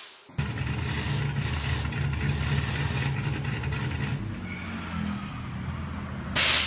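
Car engine idling steadily. About six and a half seconds in, a loud, sudden hiss starts: a nitrous purge spraying.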